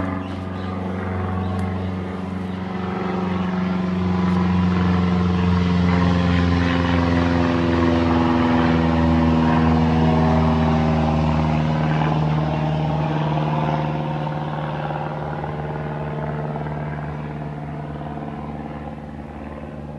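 A steady, engine-like low drone with slowly gliding tones above it. It swells about four seconds in and fades over the last several seconds.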